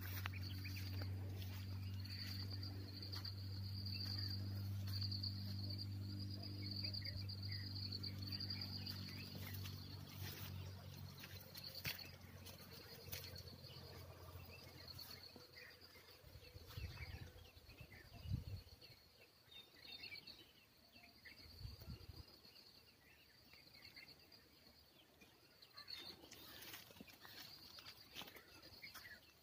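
Insects trilling in a steady, high-pitched, pulsing chorus. A low hum sits under it for the first ten seconds or so and then fades away, and a few dull low thumps come past the middle.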